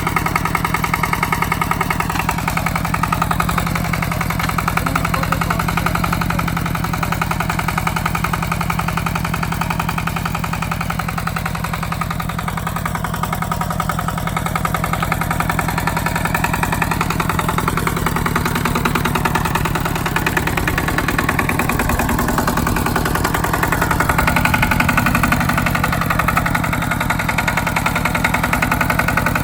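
Walking tractor's engine running steadily under load as it pulls a plough, with a fast, even chugging of firing pulses.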